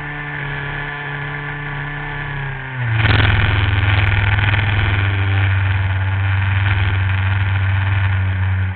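RC model airplane engine running, heard from a camera mounted on the plane. A little under three seconds in, its pitch drops and it gets louder, then holds steady.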